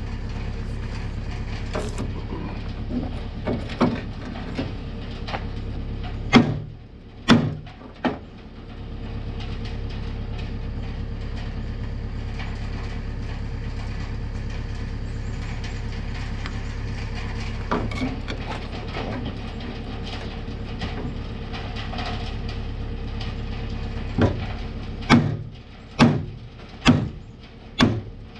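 Ball-peen hammer blows on the rusty hub of a forage-chopper corn head's cutting wheel, knocking the wheel loose: three sharp strikes about six seconds in, then a run of five about a second apart near the end. Under them runs a steady mechanical drone, like an engine running.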